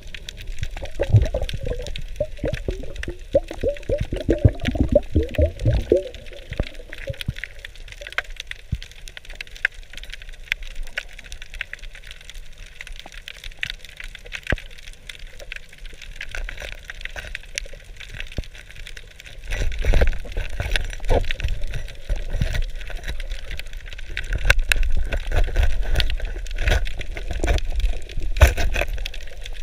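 Underwater sound heard through a camera housing: steady fine crackling throughout, with a cluster of bubbling gurgles in the first few seconds and low rumbling knocks from the diver's movement in the last third.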